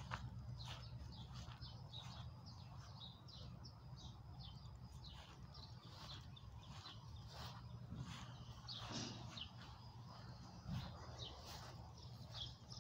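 Birds chirping: many short, high chirps, some sliding downward, a few each second, faint over a steady low hum.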